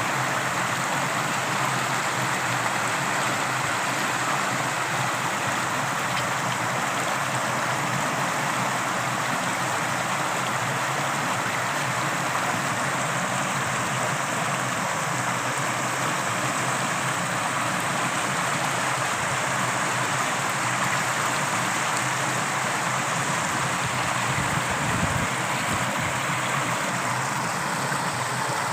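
Torrential running water rushing steadily.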